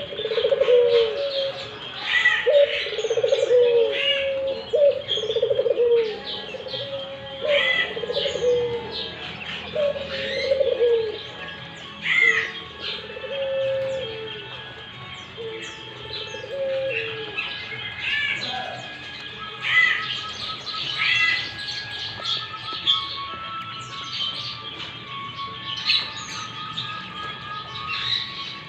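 Puter dove (Barbary dove) cooing over and over in short repeated phrases, falling silent about two-thirds of the way through, with other birds' high chirps throughout.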